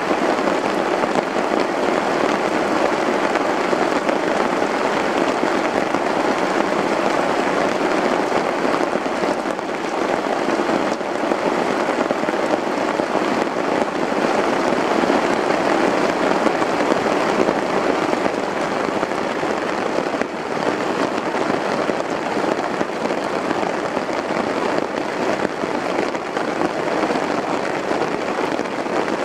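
Steady rain falling on a flysheet tarp shelter, a dense, even patter that does not let up.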